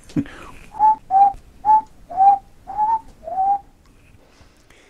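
A man whistling a short tune of six brief notes.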